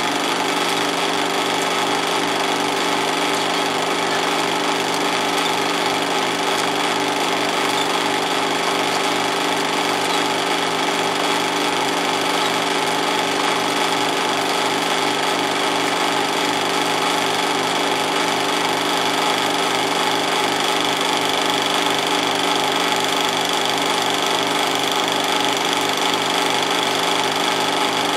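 16mm film projector running steadily, its motor whirring and the film chattering through the gate at an even, rapid rate.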